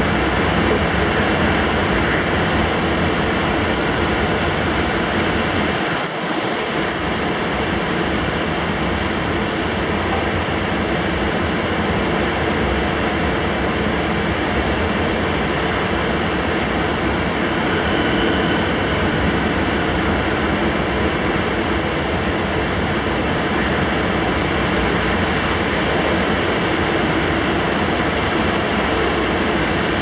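Storm-force typhoon wind channelled between high-rise tower blocks, a loud, steady rush mixed with heavy rain.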